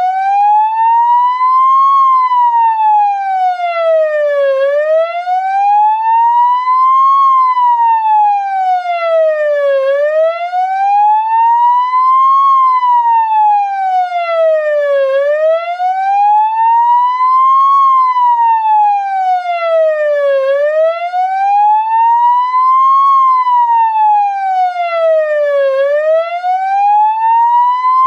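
Ambulance siren sounding a slow wail. Its pitch rises and falls smoothly about once every five seconds, with five full cycles. It starts abruptly.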